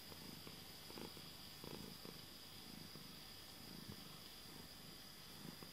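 A cat purring close up, faint and steady, pulsing with each breath while it nuzzles against a person's hand.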